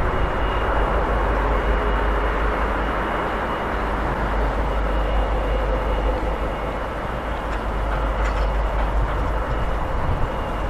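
Class 66 diesel-electric locomotive with its EMD two-stroke diesel engine, hauling an intermodal container train slowly towards the listener with a steady drone and deep rumble.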